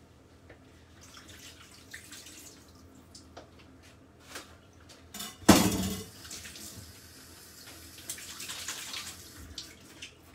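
Kitchen tap running into a sink in spells, with clicks and clinks of utensils and one sudden loud burst about halfway through.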